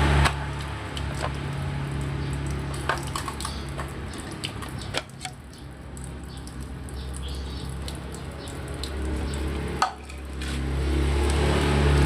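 Cordless handheld car vacuum cleaner running, its motor hum dropping sharply just after the start and rising again near the end, with scattered sharp clicks and rattles of grit being sucked up from the carpet.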